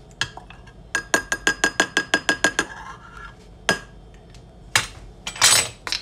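Metal spoon clinking against a glass jar, a quick even run of about a dozen taps that each ring at the same pitch as the spoon works the vanilla into the milk. One more tap follows, then a short louder scraping rustle near the end.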